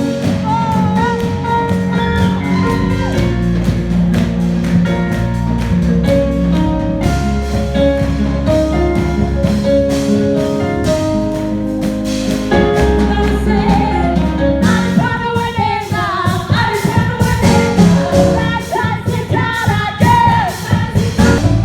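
Gospel worship music: singing voices over held chords and a steady bass, the voices growing louder and busier in the last third.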